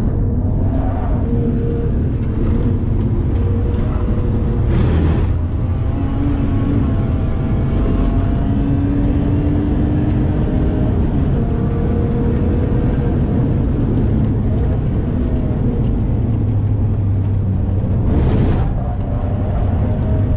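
BMW E36's 3.0-litre stroker straight-six (S50B30 US crank and pistons in an M50B25 iron block, X-pipe exhaust) pulling on a hot lap, its revs rising and falling through the corners, heard from inside the cabin. There are two brief bursts of noise, about five seconds in and near the end. The engine sounds very healthy, though the car is sluggish.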